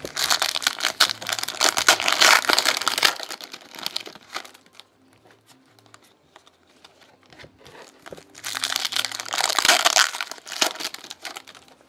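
Foil trading-card pack wrappers crinkling as they are torn open and handled by hand. This comes in two loud bouts: one of about three seconds at the start and one of about two and a half seconds near the end, with only faint handling between.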